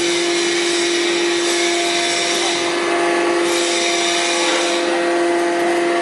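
Horizontal bagging baler's hydraulic power unit running steadily: a constant motor-and-pump hum with a few steady tones over a hiss.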